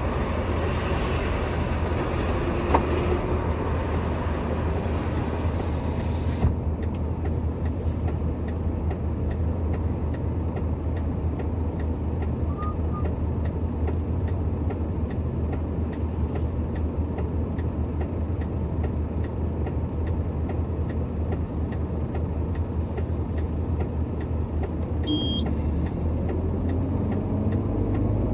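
Heavy truck engine idling steadily with a low, even hum. A higher hiss over it stops about six seconds in.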